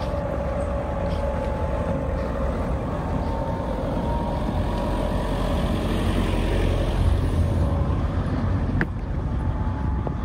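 A motor vehicle's engine running close by: a steady low rumble with a faint hum, growing louder past the middle and dropping off suddenly near the end.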